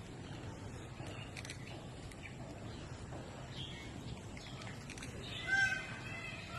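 Aviary ambience: faint, scattered bird chirps and calls over a low steady background, with a louder held note about five and a half seconds in.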